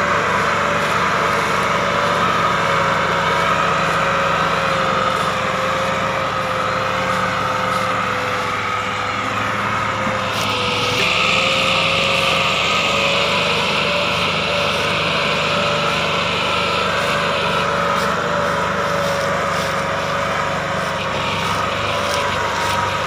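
Diesel farm tractor engine running steadily under heavy load while hauling a fully loaded sugarcane trolley, its pitch wavering slightly. A hiss joins in about ten seconds in and stops about eight seconds later.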